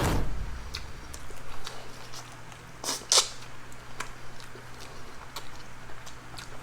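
Close-up eating sounds: chewing and lip smacks made up of scattered small clicks, with a low thump right at the start and a louder crackly noise about three seconds in.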